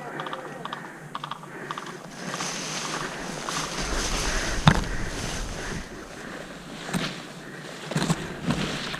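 Rustling and brushing noise that builds a couple of seconds in, with one sharp click or snap just before the middle and a few softer knocks near the end.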